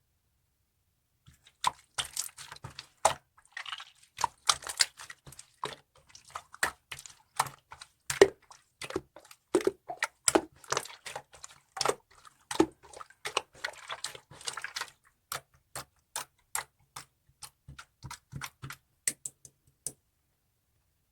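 Slime being squished and poked by hand: an irregular run of sharp clicking pops and wet crackles. It starts about a second in and stops shortly before the end.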